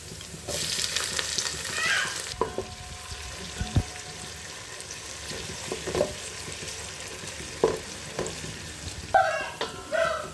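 Food frying in hot oil in a cooking pot: a loud burst of sizzling for about two seconds near the start, then quieter sizzling with a spatula knocking and scraping against the pot as the food is stirred.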